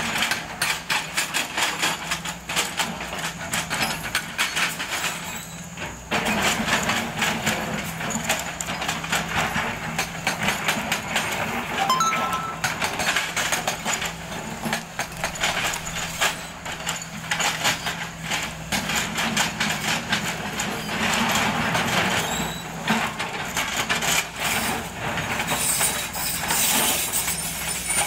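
Kobelco excavator's hydraulic rock breaker hammering rock in rapid repeated blows, over the steady drone of the excavator's diesel engine. The hammering lets up briefly a few times, about six seconds in and again between about 16 and 23 seconds, then resumes.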